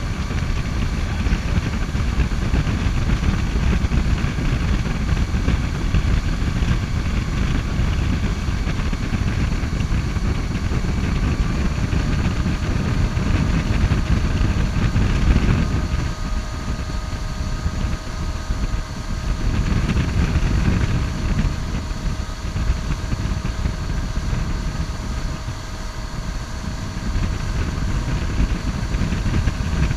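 Ski boat engine running steadily at towing speed, over the rush of the wake and wind, with a few steady tones humming through.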